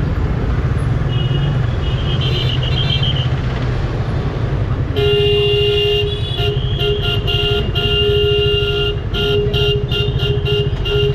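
A vehicle horn honking: one long blast about halfway through, then a quick run of short toots, with fainter horns in the first few seconds. Underneath, a Yamaha FZ25's single-cylinder engine runs low at crawling speed.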